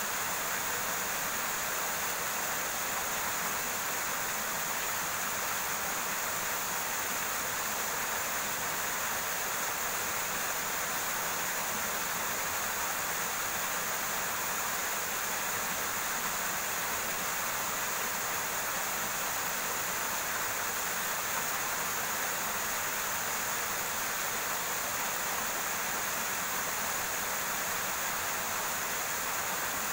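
Small river flowing steadily over rocks: a continuous, even hiss of running water.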